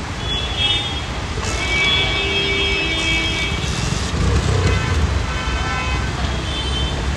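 Road traffic on a flooded street in heavy rain: a steady low rumble with vehicle horns sounding several times, the longest from about one and a half to four seconds in.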